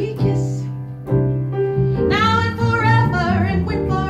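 Live piano chords, joined about halfway through by a woman's voice holding a long sung note with vibrato.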